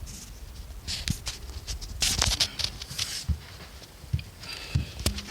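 Scattered clicks and short rustles of hands handling and fitting 24-volt relays and their wiring inside an electric furnace.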